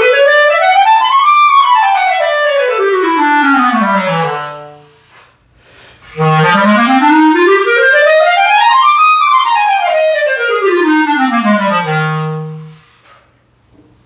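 Clarinet playing a scale of about three octaves from its lowest notes, stepping evenly up and back down. It plays twice: the first run is already climbing and ends before the middle, then after a short pause a second identical run goes up and down, ending on a held low note.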